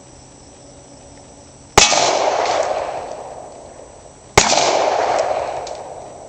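.357 Magnum fired twice, about two and a half seconds apart; each sharp shot is followed by an echo that fades away over about two seconds.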